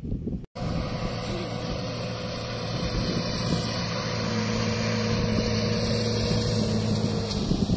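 Vehicle engine running with a steady low hum under heavy wind noise on the microphone. The sound cuts out briefly about half a second in, then carries on.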